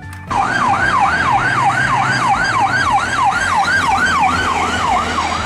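Emergency-vehicle siren in a fast yelp, its pitch sweeping up and down about three times a second; it starts abruptly just after the start.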